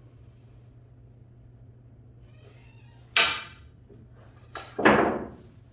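Two sharp knocks about a second and a half apart, the second the loudest, each dying away quickly: a pool cue striking the cue ball for a spin shot on the table.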